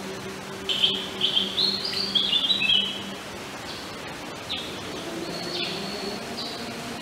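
Wild forest birds singing: a quick run of short, high whistled notes stepping up and down about a second in, then a few scattered shorter calls. A faint steady low hum runs underneath.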